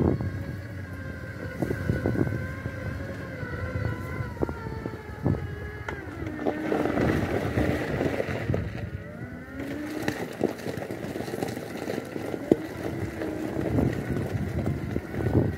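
Electric drive motors of an Extreme X8 power wheelchair whining steadily as it drives over a gravel track, with rumbling and knocks from the tyres on loose stones. About six seconds in the whine slides in pitch as the chair turns, then steadies again.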